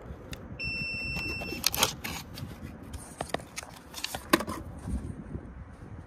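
Handling noise from a new dual run capacitor being slid out of its cardboard box: scattered clicks, taps and rustles, two of them sharper and louder. Near the start a steady electronic beep sounds for about a second.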